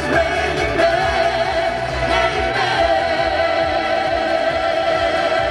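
Live amplified singing by a group of musical-theatre singers over backing music, with a violinist playing along. From about three seconds in the voices hold one long note with vibrato.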